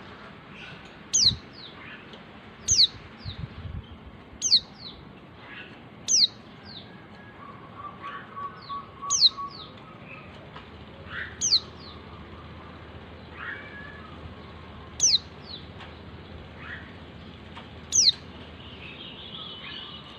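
Female white-eye (Zosterops) calling: short, sharp, high notes that sweep downward, repeated every second or two, the call a female uses to draw males. Fainter chirps sit beneath them over a soft steady hiss.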